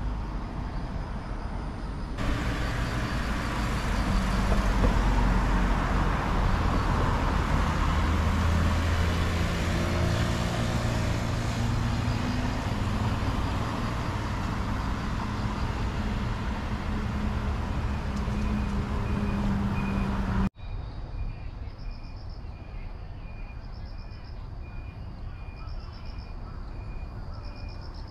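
Road traffic: vehicles pass by on the street with engine and tyre noise, loudest a few seconds in. After a sudden cut about two-thirds of the way through, a quieter street background follows with a repeating high-pitched tone.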